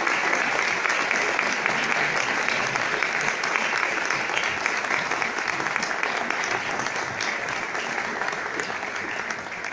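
Audience applauding with many hands clapping together, the applause slowly dying down toward the end.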